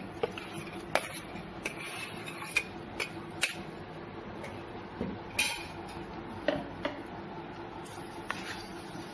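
Spatula stirring muskmelon seeds as they dry-roast in a nonstick pan: irregular sharp clicks and taps of the spatula against the pan and the seeds, over a faint steady hum.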